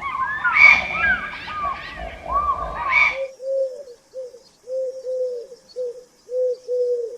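Several birds calling over one another with short, curving calls. About three seconds in, this cuts to a pigeon or dove cooing, a series of low, arched coos in pairs and triplets, repeated steadily.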